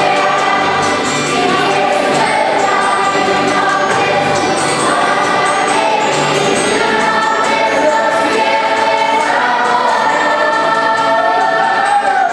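A large group of voices singing a song together, choir-style, over a low repeating bass note.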